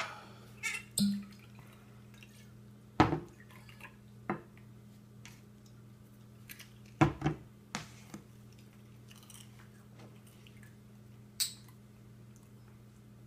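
Scotch whisky poured from glass bottles into shot glasses, with several sharp knocks of bottles and glasses set down on a table.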